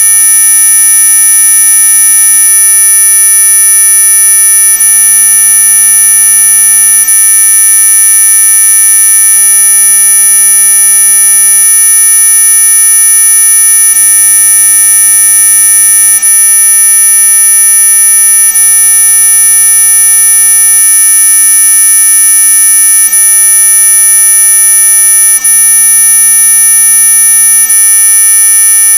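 Electronic mosquito-repellent tone sold as ultrasonic: a loud, steady, shrill drone of several pitches sounding together, the strongest near the top of hearing, held unbroken without any change.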